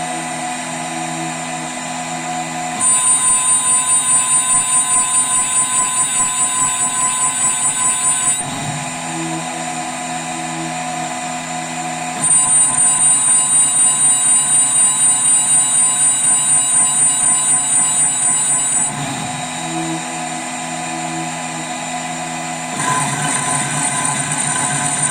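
CNC milling machine spindle running a thread mill cutting M6 threads. Twice the sound gets louder for several seconds with a regular pulsing about four times a second while the cutter is in the work, dropping back to steady spindle running between cuts.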